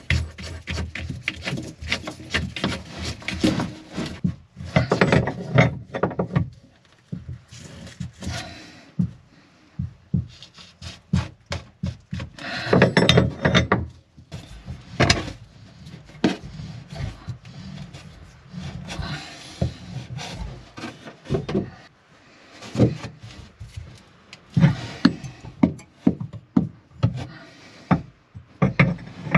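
Hands working on a brass through-hull fitting inside a fibreglass boat hull: an irregular clatter of knocks, clicks and rubbing as hoses and a valve are handled and fitted.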